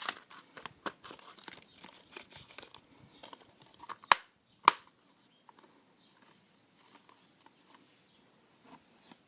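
Plastic packaging of a Blu-ray case crinkling and rustling as it is handled, followed by two loud, sharp plastic clicks a little over half a second apart, about four seconds in; after that only faint handling noise.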